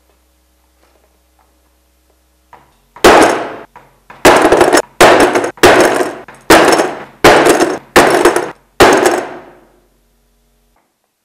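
Hammer blows on a metal tool held against a board: about eight sharp strikes, roughly one every three-quarters of a second, starting about three seconds in, each clanging and ringing as it dies away.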